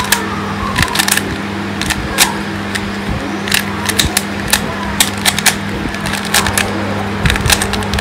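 A plastic 3x3 Rubik's cube being scrambled by hand: irregular clicks and clacks, some in quick clusters, as the layers are twisted. A steady low hum runs underneath.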